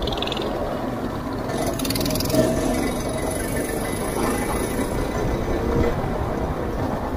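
Go-kart engine running steadily at speed, heard from the driver's seat, with a brief knock about two and a half seconds in.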